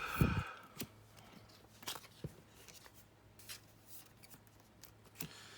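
Trading cards being handled and slid into plastic card sleeves: light rustling and scattered small clicks, with a dull thump just after the start.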